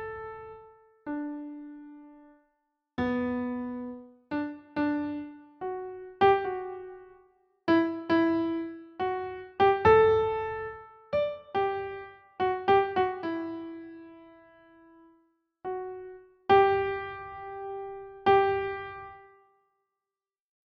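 Slow, sparse piano melody: single notes and occasional two-note chords, each struck and left to fade, with short pauses between phrases.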